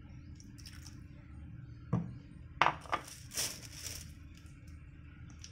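A ceramic mug knocking and clinking against a tiled floor as it is set down, a few sharp knocks followed by a short scraping rustle.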